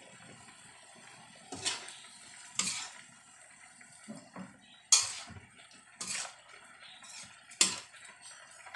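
Metal spatula scraping and clanking against a large aluminium wok while turning pork belly chunks, with about five sharp clanks and smaller knocks in between.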